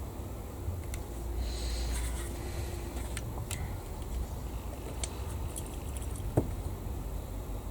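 Faint clicks and taps of small plastic model parts and tools being handled on a workbench, over a steady low hum; one sharper click about six seconds in.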